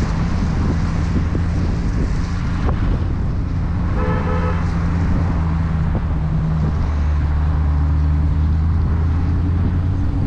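Dodge Challenger R/T's 5.7-litre HEMI V8 running at low revs on a climb, its low note deepening slightly and getting a little louder about two-thirds of the way through. A car horn gives one short toot about four seconds in.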